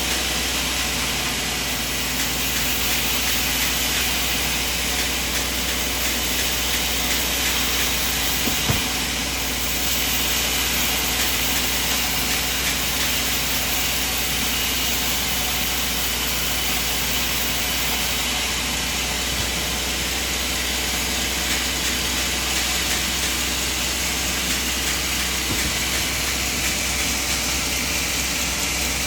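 Band sawmill running steadily, its motor giving a constant drone and hiss, with one short knock about nine seconds in.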